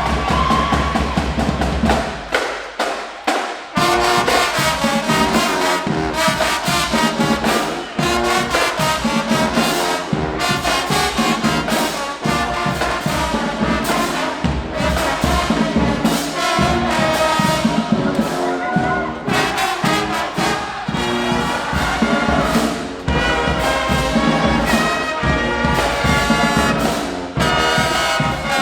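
High school marching band playing: a loud brass section of trumpets and trombones over drums. About two seconds in the low end drops out for a few short, accented hits, then the full band comes back in with sustained brass lines.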